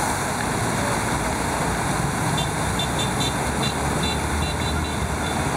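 Steady rush of water from a large fountain's many jets falling and splashing into its pool, with a few short high chirps in the middle.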